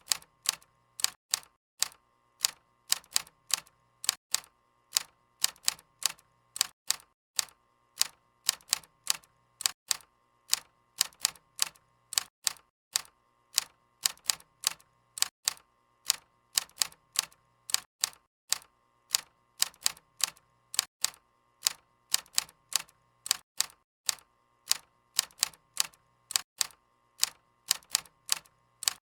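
Typewriter keys striking the paper in an uneven rhythm, about three to four sharp clacks a second, with brief pauses between runs.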